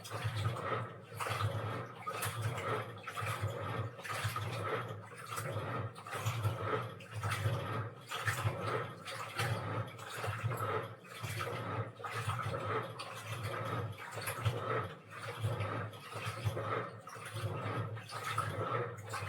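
Washing machine drum churning laundry in water, the water sloshing in regular surges about once a second over a low steady motor hum.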